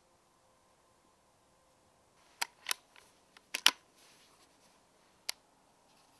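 Sharp metallic clicks from the Walther Rotex RM8 PCP air rifle's side-lever action being worked to chamber the next pellet: two quick clicks about two and a half seconds in, a louder close pair a second later, and a single click near the end.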